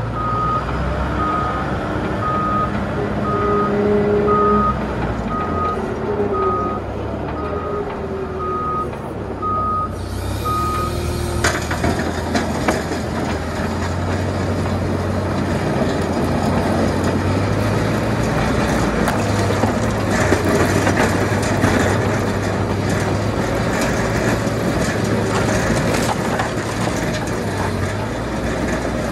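Tractor engine running steadily while a reversing alarm beeps about once a second for the first eleven seconds or so. From about eleven seconds in, the front-mounted snowplow blade scrapes snow and ice off the road surface with a rough, continuous scraping noise over the engine.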